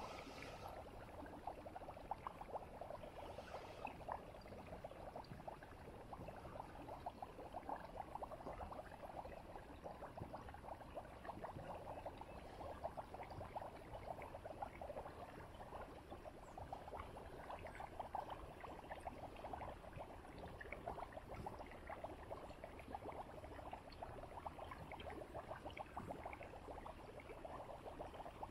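Dense, steady crackling and popping of gas bubbles rising to the surface of a shallow flooded field and breaking there.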